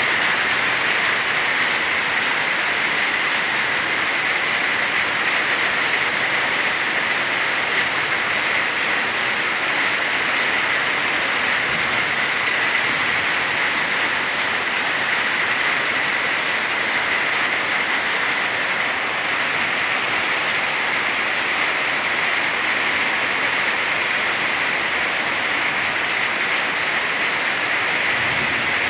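Steady rain falling on wet ground and puddles and on the corrugated metal roof overhead, an even hiss that holds without a break.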